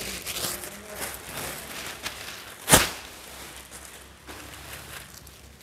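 Thin plastic bag rustling and crinkling as it is handled and pulled open, with one sharp, louder crackle a little under three seconds in.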